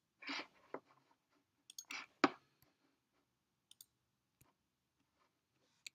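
A few quiet clicks of a computer mouse and keyboard, the sharpest about two seconds in, then a couple of faint ticks.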